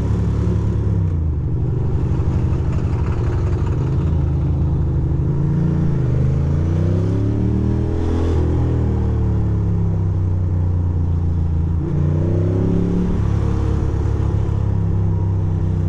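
Ducati Monster 620's air-cooled L-twin engine running under way. Its pitch falls and rises several times as the throttle is eased off and rolled back on.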